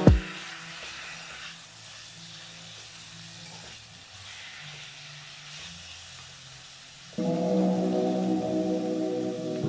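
Background music breaks off with a thump, leaving a faint, steady hiss of chicken pieces sautéing in a pan for several seconds. Music with sustained, layered tones comes back about seven seconds in.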